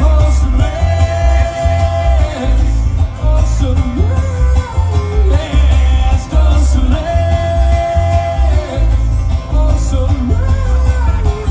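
A live bluegrass band playing: banjo, acoustic guitar, mandolin and upright bass under a sung lead vocal that holds two long notes, with a heavy bass line throughout.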